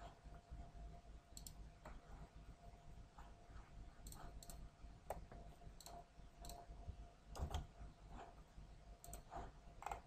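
Faint computer mouse clicks: about nine irregular single clicks over a low steady room hum, as points of a fill are placed in a CAD drawing.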